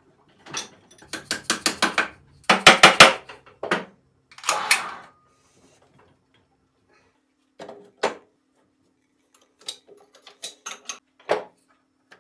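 Metal parts and tools being handled at a bench: clusters of sharp clinks and clanks, with a quick run of strikes in the first few seconds, then scattered single clicks later on.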